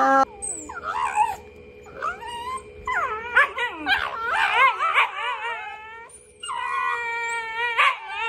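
Two Shiba Inus yowling and howling at each other in wavering cries that rise and fall in pitch. There is a short break about six seconds in, then a longer, steadier wobbling howl. Right at the start, the last moment of a donkey's bray is cut off.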